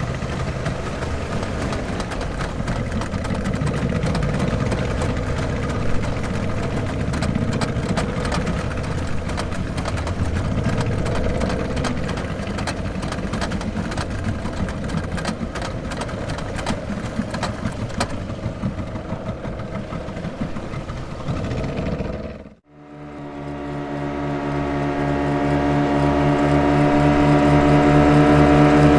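Speedboat engine running under a hiss of water and wind. About three-quarters of the way through it fades out almost to nothing and is replaced by a steady engine hum with a clear pitch, fading in and growing louder.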